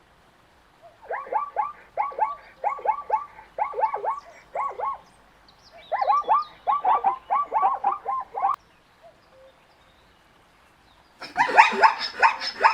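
Zebra calling in three bouts of quick, repeated yelps, about three a second; the last bout, near the end, is the loudest.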